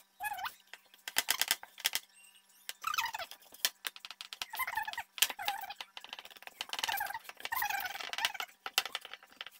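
High whining calls, a few short ones and then a longer run near the end, over scattered clicks and taps from hands working dough on a plastic tray.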